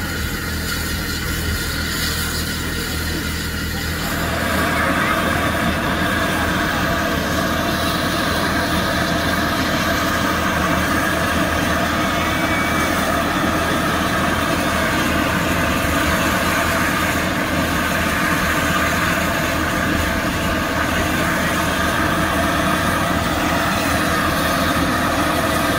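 Steam hissing steadily from GNR(I) V class 4-4-0 compound steam locomotive No.85 'Merlin' standing at the platform, growing louder about four seconds in.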